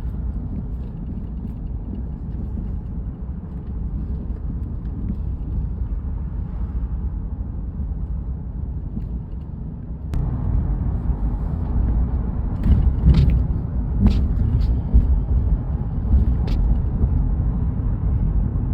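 Steady low rumble of a car driving; about ten seconds in it gets louder, and several sharp clicks follow.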